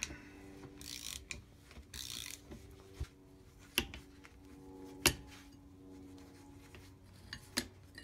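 A ratchet on a hex socket turning in a few rasping strokes to back out the screw on a hydraulic joystick pilot valve. It is followed by scattered sharp metal clicks and clinks as the loosened parts are handled, the loudest about five seconds in.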